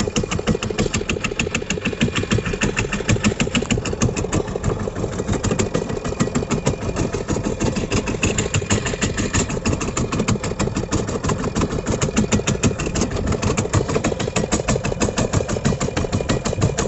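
Fishing boat engine running steadily with a fast, even chugging.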